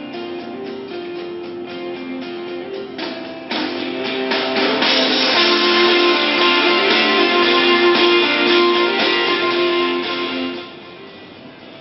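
Guitar music played through a portable mini Bluetooth cube speaker: a plucked guitar melody that grows fuller and louder about three and a half seconds in, then drops back quieter near the end.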